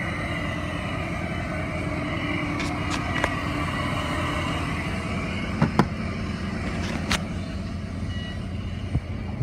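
Truck engine running steadily, with a few sharp clicks and knocks about halfway through.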